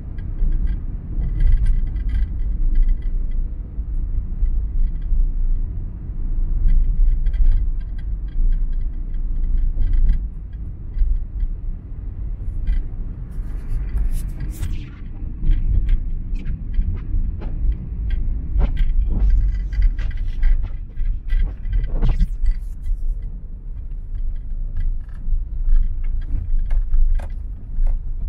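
Car driving on a wet road at speed: low, unsteady road rumble with scattered light ticks and a brief hiss about halfway through.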